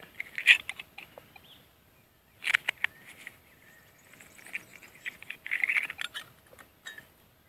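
Gloved fingers scraping and clicking at the metal case of a corroded pocket watch as it is prised open, in several short bouts of scratchy clicks with pauses between.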